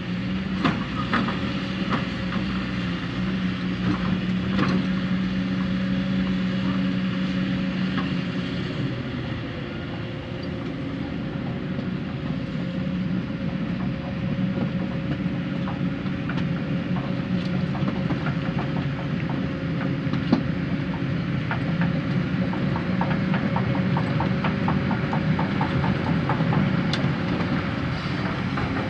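Heavy diesel construction machinery at work: an engine running steadily with a constant whine, and frequent clanks and knocks of metal and material throughout.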